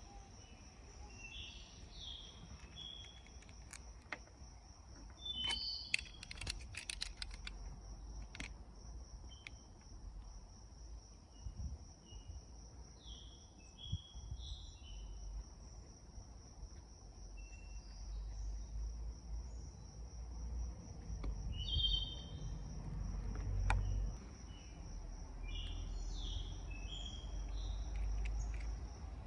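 Outdoor ambience: birds chirping in short calls over a steady high insect trill, with a quick run of clicks about six seconds in and a low rumble underneath.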